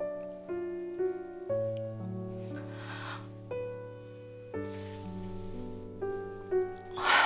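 Slow, soft piano background music with held notes that change about once a second. Short rushes of noise come about three seconds in and again near five seconds, and a louder one comes near the end.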